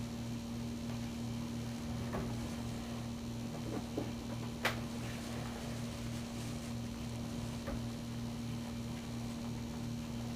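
Steady low electrical hum with a pulsing undertone, and a few faint clicks, the sharpest about four and a half seconds in.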